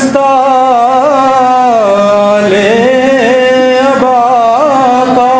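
A solo voice singing a devotional salaam, drawing one long unbroken melismatic phrase with ornamented turns; the pitch slides down about two seconds in and climbs back up after a moment.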